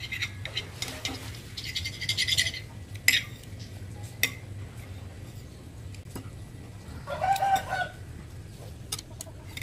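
A metal spoon clinking and scraping against a glass plate a few times, and a chicken calling once for about a second near the end.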